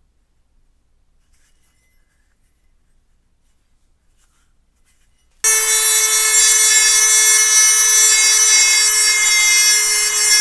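Near silence, then about five seconds in a power tool cuts in abruptly and runs steadily against the steel axe head: a loud, constant whine over a high hiss.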